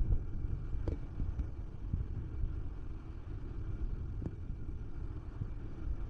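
Wind buffeting the microphone as a low, steady rumble, with a couple of faint knocks.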